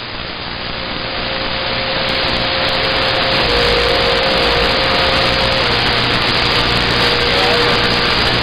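CB radio receiver static: a steady hiss that swells over the first few seconds and then holds, with faint steady whistles of carriers on the channel drifting in and out.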